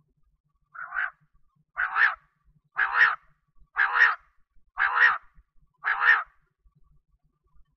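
Female quail calling: six short calls about a second apart, each a quick double note, the first one fainter.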